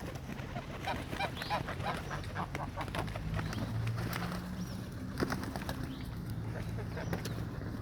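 Geese and ducks being fed, a busy run of short, quick calls over a steady low hum.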